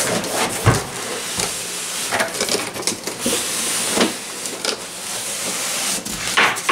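Cardboard monitor box being slid up and off its styrofoam packing: continuous scraping and rubbing, with several knocks and thumps along the way.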